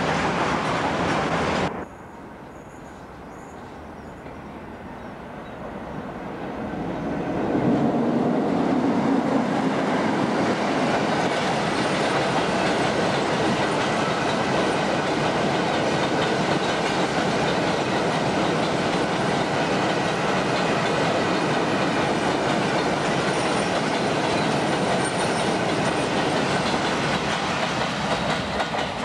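A Class 60 diesel locomotive approaches and passes, its engine growing louder over several seconds, then a long train of empty MGR coal hopper wagons rolls steadily past, wheels running over the rails. A louder rail sound from a different shot cuts off suddenly about two seconds in.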